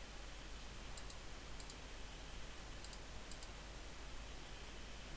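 Faint short clicks in quick pairs, about four pairs spread through, over a steady low hum: the clicking of working on a jigsaw.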